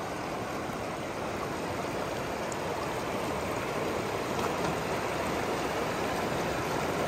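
Shallow river running over rocks: a steady rush of flowing water.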